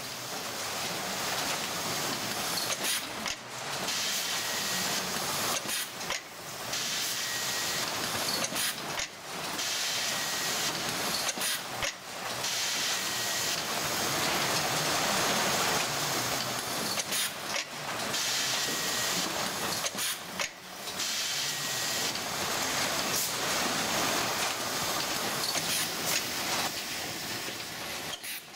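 Automatic box labelling machine and conveyor running: a steady hiss of machinery and compressed air, broken every few seconds by brief dips and clicks as the pneumatic applicator cycles.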